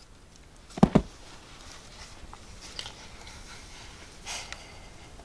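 Two quick knocks close together about a second in, then light rustling: paper puppets on card strips being moved and lowered in a cardboard toy theatre.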